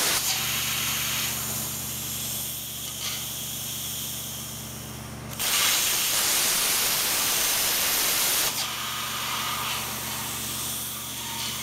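Torchmate CNC plasma cutting table running: a steady hiss over a low electrical hum. About halfway through, a louder hiss lasts about three seconds while the hum drops out, then the steadier sound returns.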